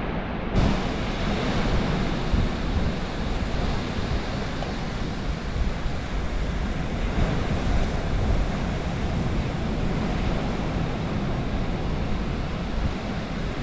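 Ocean surf washing steadily onto the beach, with wind rumbling on the microphone. A single sharp click about half a second in.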